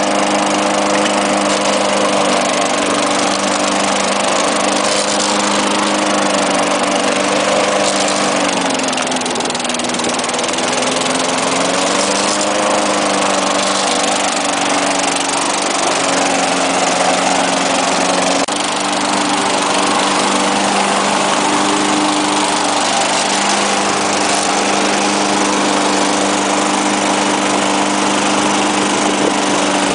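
Lawn-Boy walk-behind lawn mower engine running steadily. Its pitch sags for a few seconds just before the middle, then picks back up.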